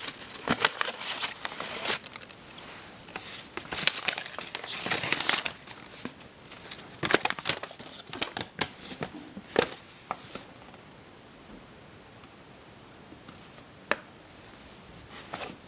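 Packaging being crinkled and torn open by hand in irregular rustling bursts, which die away after about ten seconds, followed by a single sharp click near the end.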